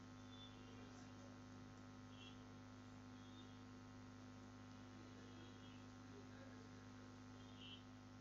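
Near silence: a steady low electrical mains hum in the recording, with a few faint short high sounds now and then.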